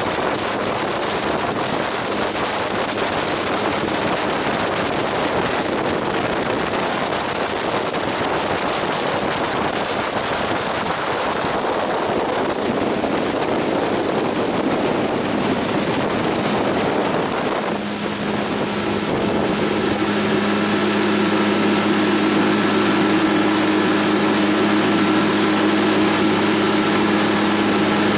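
Outboard motor of a UMS Tuna 500TT boat running at planing speed, mixed with hull spray and wind on the microphone. About eighteen seconds in, the sound turns into a steady engine hum with a clear, even pitch.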